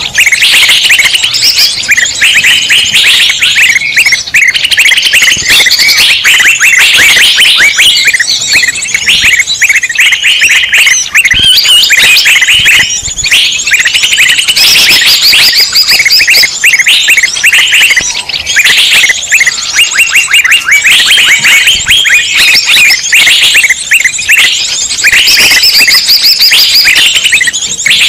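Loud, dense chorus of many small songbirds chirping and chattering at once, an agitated mixed-flock sound used as a bird-luring call. Quick overlapping chirps and trills run without pause.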